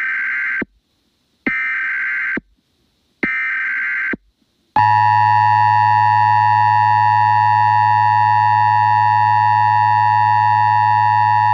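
Emergency Alert System tones: three short bursts of SAME header data, each just under a second and about a second apart, then the steady two-tone EAS attention signal starting about five seconds in and holding for about seven seconds. The attention signal marks an emergency alert about to be read.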